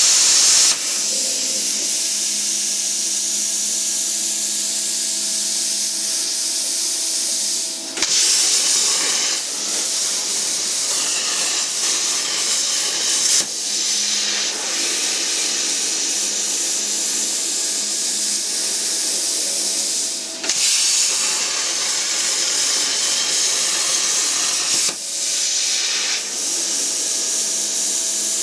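Steady, loud hiss of a gas jet, with a faint hum beneath it and a few brief breaks.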